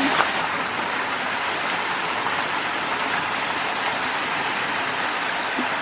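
Steady rush of water from a small waterfall in a canyon creek.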